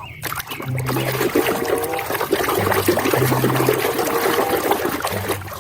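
Water running and splashing as a muddy toy is washed, a steady trickling wash of sound.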